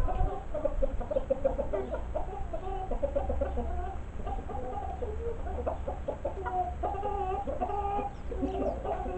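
Chickens clucking, a steady stream of short calls in quick succession.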